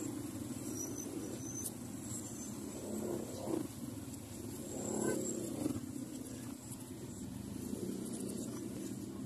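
Street traffic: a steady low engine rumble from motorcycles and motor tricycles, swelling briefly as vehicles pass, about three and a half and five seconds in.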